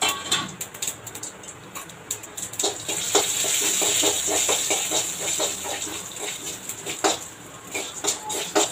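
Tempering seeds (mustard seeds with urad and chana dal) frying in hot groundnut oil in a kadai, sizzling and popping. The rapid crackling, several pops a second, picks up about two and a half seconds in, eases off near the end and then starts again.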